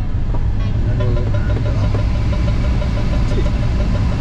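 Steady low rumble of airflow over a glider's canopy heard inside the cockpit, with an audio variometer beeping quickly and evenly at one pitch from about a second in.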